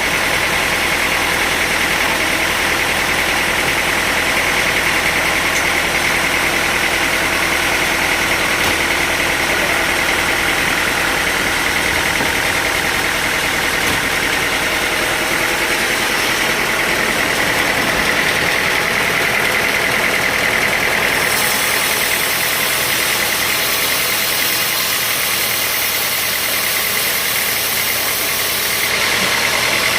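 Sawmill engine running steadily, a constant mechanical drone with a high whine. About two-thirds of the way through, a brighter hiss joins it for several seconds while the low end drops away.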